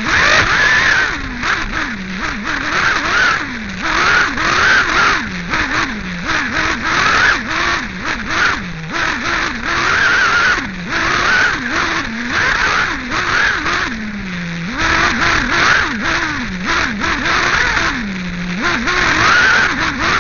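Small nitro glow engine of a 1/8-scale RC8B off-road buggy, heard close up from an on-board camera. It revs up and drops off again every second or two as the buggy accelerates and brakes around the track, with frequent short knocks over the dirt.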